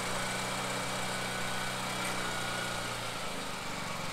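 BCS 739 two-wheel tractor's small petrol engine running steadily at idle, its note shifting slightly about three seconds in.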